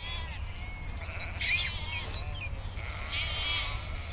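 Sheep bleating: two quavering, high-pitched bleats, a short one about a second and a half in and a longer one past the three-second mark, with fainter calls from the flock between them. A steady low rumble runs underneath.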